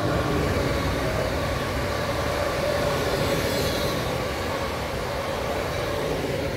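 Two coupled EN78A electric multiple units passing close by: a steady rumble of wheels on rail with a steady whine riding over it, starting to fade as the last car goes by near the end.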